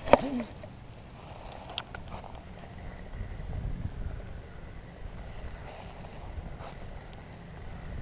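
Wind rumbling on a GoPro microphone during bank fishing, with a sharp click just at the start and another a little under two seconds in from handling the spinning rod and reel.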